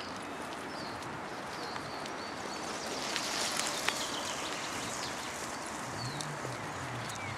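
Outdoor park ambience: a steady hiss of wind and leaves with short bird chirps every second or so. A hiss swells briefly in the middle, and a low engine-like drone comes in near the end.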